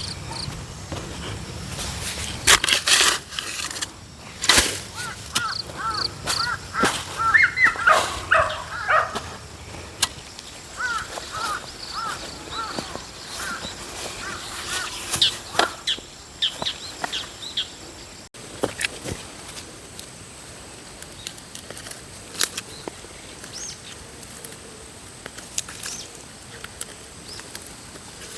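A bird calling in quick runs of short chirps, mostly in the first half, among scattered sharp knocks and rustles.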